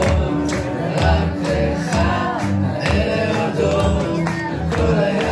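A young man singing into a microphone over a recorded backing track with a steady beat and bass, amplified through a PA.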